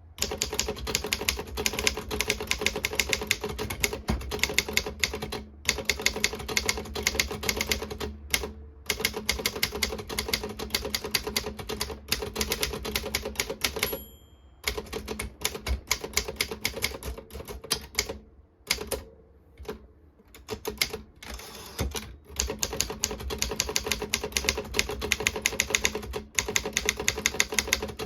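Optima Elite 3 manual portable typewriter being typed on: fast runs of key strikes, many a second, broken by a few short pauses.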